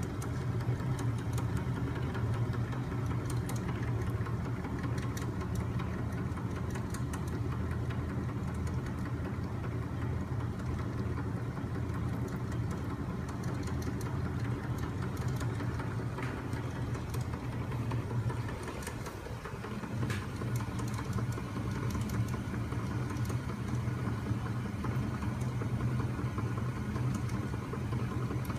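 Homemade magnet-engine machine running: flywheel, crankshaft and linkages turning, with a steady low hum and a continuous light mechanical clicking and rattling.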